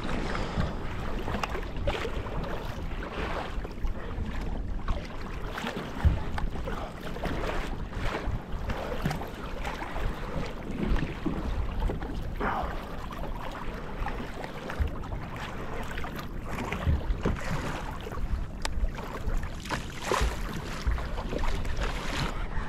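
Choppy seawater slapping and sloshing irregularly against a fishing kayak's hull, with wind buffeting the microphone.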